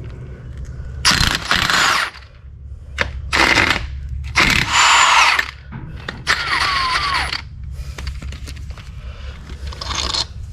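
Impact wrench run in about five short bursts, loosening the main bearing cap bolts on the mini excavator's diesel engine.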